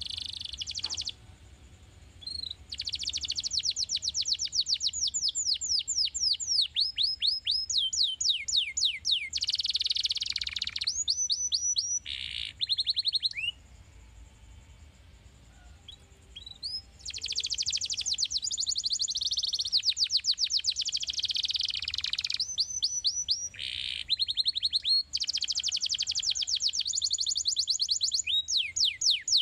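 Domestic canary singing: long, fast trills of repeated down-sweeping notes, broken by a short pause near the start and a longer pause of about three seconds about halfway through.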